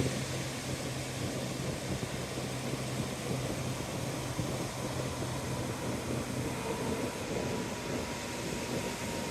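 Ocean surf breaking on a beach, a steady wash of noise, with a low steady engine-like hum underneath that fades out about seven seconds in.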